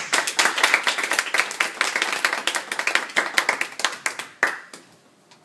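Several people clapping their hands in applause, a dense uneven patter that thins out and stops about four and a half seconds in.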